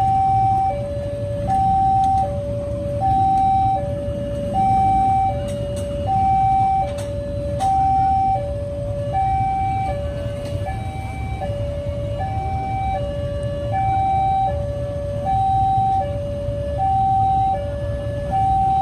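Railway level-crossing warning alarm sounding an even high-low two-tone pattern, each tone about three-quarters of a second, the pair repeating about every second and a half, warning that a train is approaching. A low rumble runs underneath.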